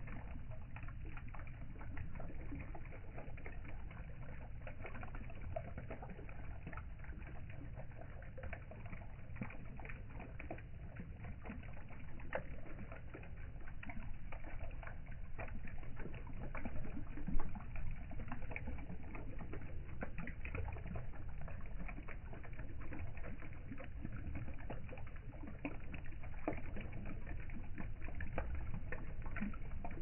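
Water trickling and splashing from the tiers of a three-tier concrete fountain into its basin, a steady patter of small splashes over a low rumble, with one louder knock a little past halfway.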